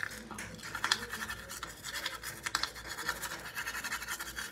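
Toothbrush scrubbing teeth: rapid, irregular back-and-forth strokes of the bristles.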